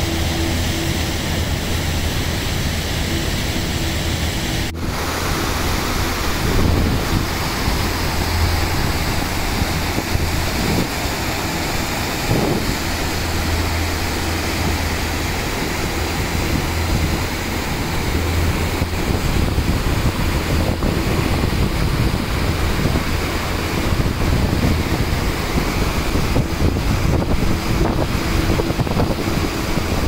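Steady rush of falling water from Dynjandi waterfall and its lower cascades, with wind buffeting the microphone. A brief break about five seconds in, where the recording cuts.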